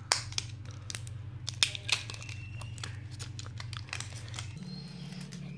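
Packaging being handled: bubble wrap and a cardboard box crinkling and rustling, with a few sharp clicks, the loudest just after the start and about a second and a half in.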